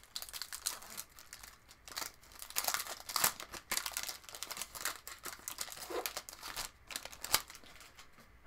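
Baseball card pack wrapper crinkling and tearing as it is ripped open by hand, in irregular crackles.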